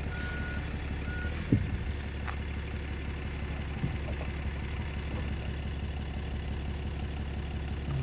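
A bus's reversing alarm beeps twice and stops about a second in, over the bus engine running steadily and low. There is one sharp knock just after the beeps stop.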